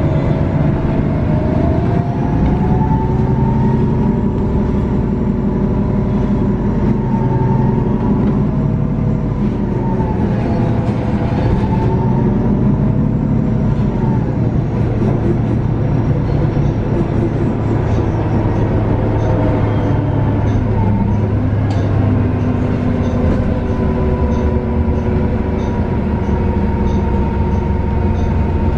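Cabin sound of a moving 2019 Nova Bus LFS CNG: its Cummins L9N natural-gas engine and Voith transmission running with a steady heavy rumble and whining drivetrain tones that rise and fall with road speed, dipping briefly about two-thirds of the way through. From about the same point a faint regular ticking comes in, a little under two a second.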